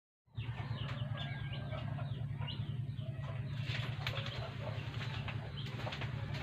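Birds chirping in quick short calls, over a steady low hum.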